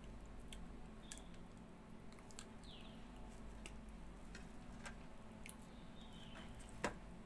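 Small wet smacks and clicks from chewing and sucking the stringy pulp of a ripe palmyra palm (tala) fruit, scattered irregularly, with one sharper smack near the end.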